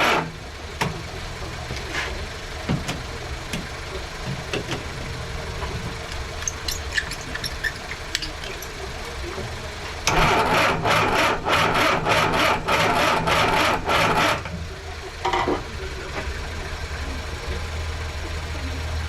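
Mini's engine being cranked on the starter motor for about four seconds, turning over in an even pulse without catching, then stopping. A steady low hum runs underneath, and there are a few light clicks of tools before the cranking.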